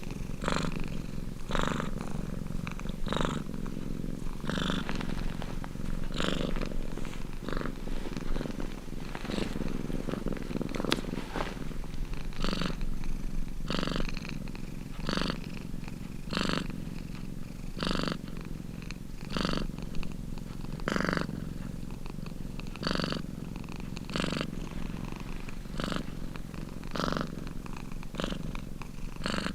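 Domestic cat purring steadily, swelling in a regular rhythm about every one and a half seconds with its breathing.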